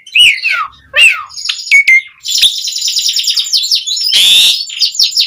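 Javan pied starling (jalak suren) in full song: a quick run of looping and sliding whistles, then a dense stream of rapid chattering notes, broken about four seconds in by a loud harsh screech.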